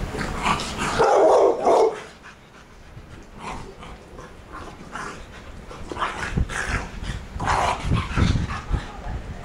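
Pit bulls barking and yipping as they play-fight, with the loudest burst about a second in and a cluster of short barks near the end.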